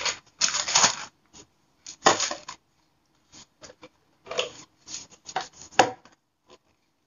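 Plastic toiletry bottles and containers being handled and set back into a storage bin, in irregular rustling and clattering bursts with a few sharp knocks and short quiet gaps between.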